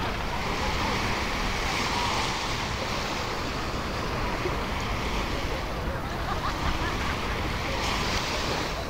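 Surf washing onto the beach, swelling about two seconds in and again near the end, with wind rumbling on the microphone.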